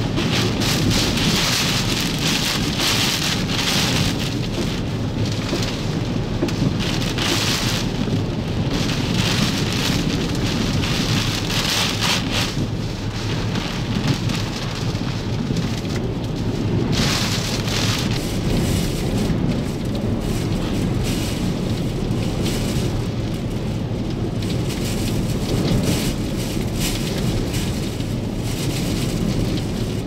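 Hurricane-force wind and driving rain of a Category 4 hurricane: a loud, unbroken rush with a deep low rumble, and gusts that surge over it every few seconds, strongest in the first half.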